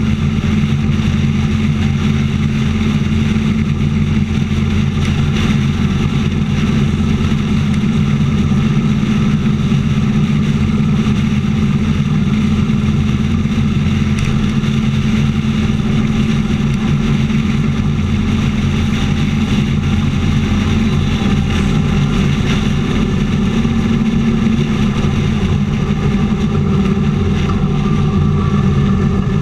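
Motorcycle engine running steadily at highway cruising speed, heard from a camera mounted on the bike, with a constant low drone and no change in pitch.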